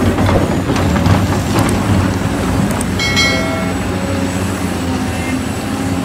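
Large Caterpillar hydraulic excavator working: the diesel engine runs steadily under load with the rumble and clatter of the machine digging, and a brief high-pitched squeal about three seconds in.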